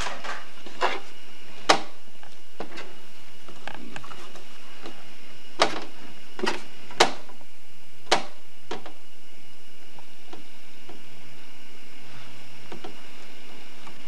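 Plastic toy kitchen being handled: scattered sharp clicks and knocks as its small doors are opened and snapped shut, the loudest about two seconds in and again about seven seconds in, over a steady hiss.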